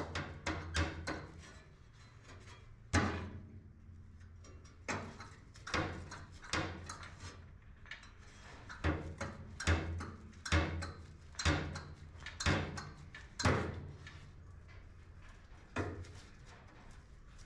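A series of sharp knocks, a quick cluster at the start, then single blows at irregular spacing of about a second with short pauses.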